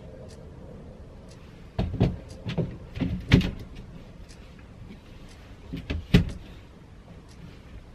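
Plastic inner frame of a motorhome roof hatch knocking and clicking as it is pushed up into place against the ceiling: a quick run of knocks about two seconds in, then a few more about six seconds in.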